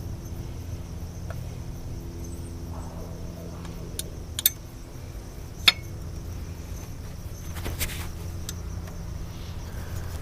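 Hand tools clinking against metal engine parts: two sharp metallic clicks about four and a half and nearly six seconds in, and a rougher rattle near eight seconds. Underneath are a steady low hum and a faint, steady high-pitched tone.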